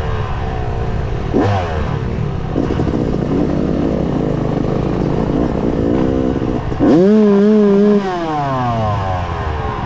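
Dirt bike engine revving and backing off, with a quick blip of the throttle about a second and a half in and a loud held rev from about 7 to 8 seconds in, after which the pitch falls as the throttle closes.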